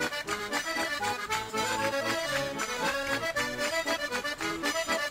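Lively instrumental background music with quick, evenly paced notes.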